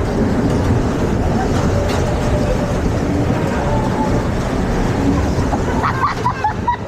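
Amusement ride car running along its track: a steady rumble with a few short squeaks near the end.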